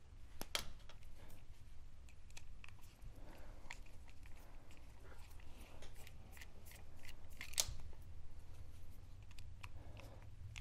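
Small flathead screwdriver backing screws out of the end of a DJI Agras T40 spray pump: faint scattered clicks and scrapes of the tip in the screw heads and of the pump being handled, over a low steady hum.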